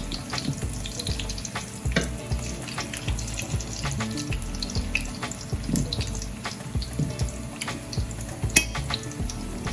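Plantains frying in hot avocado oil in a pot: a steady sizzle with frequent small crackling pops.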